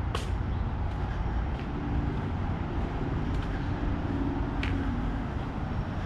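Steady low rumble of road traffic, with a faint engine hum in the middle and a few light clicks.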